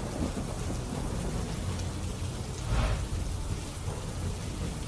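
Heavy rain falling with a low rumble of thunder, swelling briefly about three seconds in.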